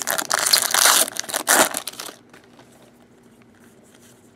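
Foil wrapper of a Bowman baseball card pack crinkling and crackling as it is handled, for about two seconds before stopping.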